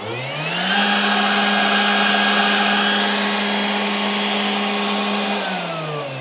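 Brushless spindle motor on a 3018 CNC router spinning up with a rising whine to about 12,000 RPM, which it reaches about a second in. It holds a steady high whine, then drops in pitch near the end as the manual speed knob is turned down.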